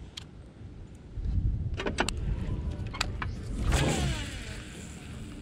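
A cast with a baitcasting reel carrying a lipless crankbait: a few sharp clicks of tackle being handled, then, about four seconds in, the reel's spool whirs as the line pays out, the whir falling in pitch. A steady low rumble runs underneath.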